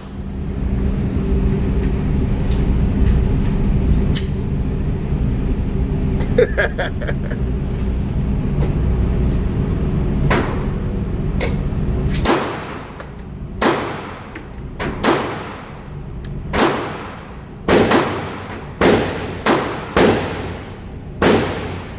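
A string of about a dozen gunshots, roughly one a second, each ringing out afterwards, beginning about ten seconds in. Before them there is a steady low hum.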